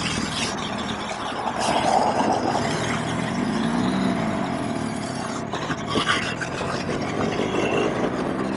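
Wind rushing over a motorcyclist's helmet microphone at riding speed, under the running flat-twin engine of a BMW R1200GS Adventure. The engine note rises and falls once in the middle and climbs again near the end.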